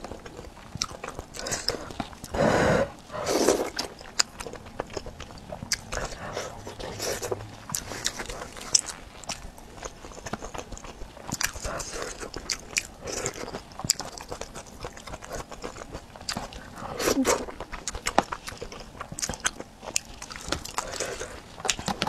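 Close-miked eating sounds of a person chewing a spicy self-heating hot pot: wet chewing and bites with many small clicks, and a few louder mouth sounds about two to four seconds in and again past the middle.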